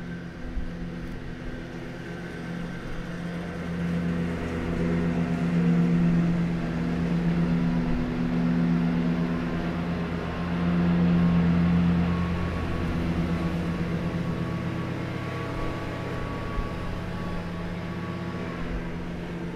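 Leaf blower running just outside the window, heard from indoors: a steady engine drone that swells louder from about four seconds in and again around eleven seconds in, then settles back.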